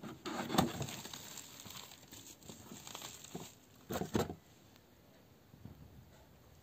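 Plastic bubble wrap and a cardboard box being handled and opened, crinkling and rustling, with two louder crackles about four seconds in.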